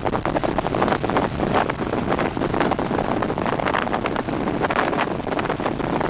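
Helicopter engine and rotor noise heard from inside the cabin in flight: a steady, loud drone with a rapid, even pulsing.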